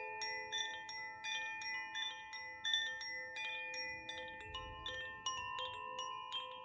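Koshi chime ringing: quick, irregular strikes of its tuned rods, several a second, each note ringing on and overlapping with the others in a sustained shimmer of a few pitches.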